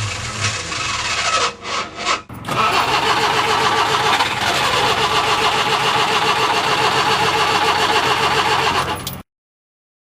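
Ford Cortina Mk1's four-cylinder engine being cranked by the starter motor without catching, a rhythmic churning. It breaks off briefly about two seconds in, resumes for several seconds, then stops suddenly near the end.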